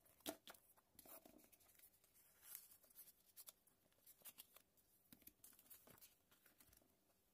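Faint rustling and light irregular taps of plastic-backed sticker sheets and a paper notebook cover being handled and laid down, dying away near the end.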